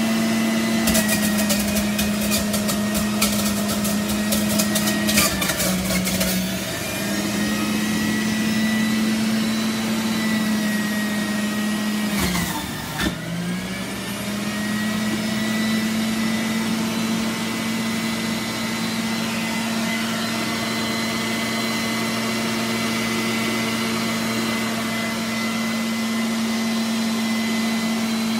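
Breville centrifugal juicer motor running steadily while oranges are pushed down the feed chute. For the first several seconds it rattles and crackles as the fruit is shredded on the spinning cutting disc. The motor pitch sags briefly twice under the load, around six seconds and thirteen seconds in.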